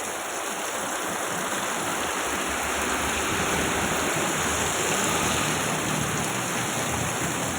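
Heavy rain pouring down, a steady hiss of falling water that grows a little louder partway through.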